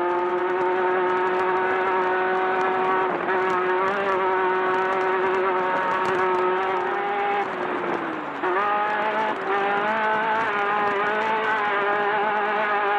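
Off-road race buggy's engine running at high revs under full throttle, the pitch held steady; about eight seconds in the revs drop briefly and then climb again.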